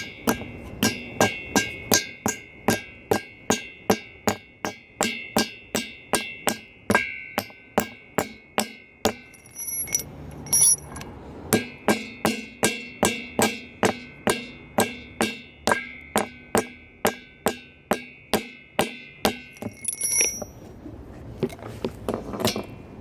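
Hammer tapping a cut levelling shim in under a railing post's base plate: steady, even blows about two a second, each with a short ring, pausing briefly twice.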